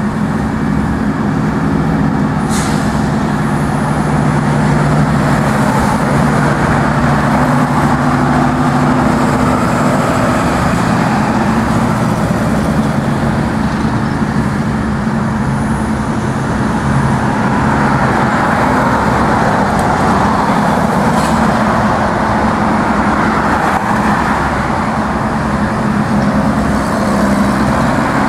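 Steady engine drone with road traffic noise, and two brief sharp high sounds, one about two and a half seconds in and one about twenty-one seconds in.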